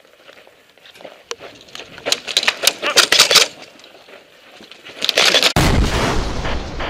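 Airsoft guns firing in rapid bursts of sharp clicks, with a loud rushing noise near the end.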